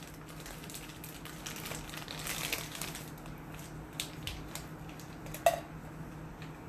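Soft rustling and crinkling of kitchen ingredient packaging being handled, with a few small clicks and one sharper knock about five and a half seconds in, over a steady low hum.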